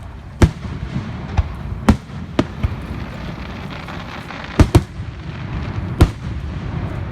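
Fireworks going off: a string of sharp bangs, about six in all, with two in quick succession past the middle, over a continuous low rumble.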